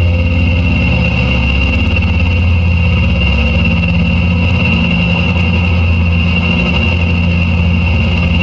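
Experimental drone from a contact-miked garden fork fitted with brass rods and springs, fed through delay and reverb pedals: a loud, dense low hum that flutters rapidly, with a steady high ringing tone above it.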